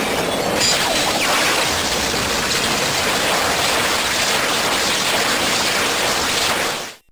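Ultraman Cosmos beam-firing sound effect from a Cosmo Pluck transformation toy: a steady, loud hissing rush that cuts off suddenly near the end.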